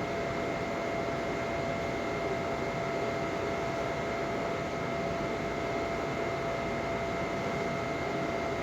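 Steady background hiss with a faint, even high whine running through it, and no distinct clicks or knocks.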